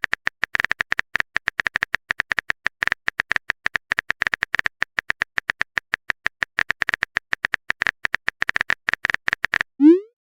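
A fast, slightly uneven run of short clicking blips, about nine a second, each ringing at the same high pitch. Just before the end it breaks off into a quick rising sound effect.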